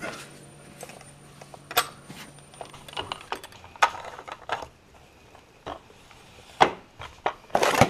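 Plastic meat grinder being put together: the cutting blade, metal grinding plate and threaded plastic ring knocked and clicked into place on the head. Scattered clicks, with a loud cluster of knocks near the end.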